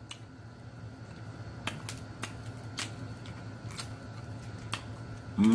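Eating sounds as crab is eaten by hand: a scattering of sharp mouth smacks and clicks, about seven over a few seconds, over a faint steady hum. A hummed voice begins at the very end.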